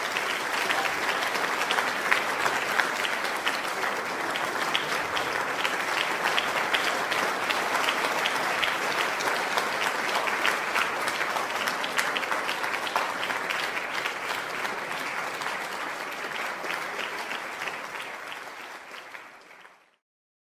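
Audience applauding: a dense, even clatter of clapping hands that fades out near the end.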